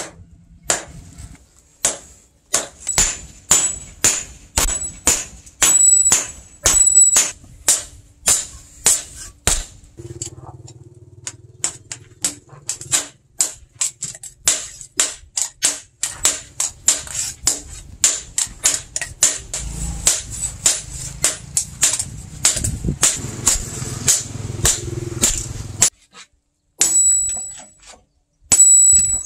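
Hand hammer striking a red-hot knife blade on a steel post anvil in a steady ringing rhythm, about two blows a second. About a third of the way in the blows come faster, over a low hum, and they stop shortly before the end, with a few more strikes right at the end.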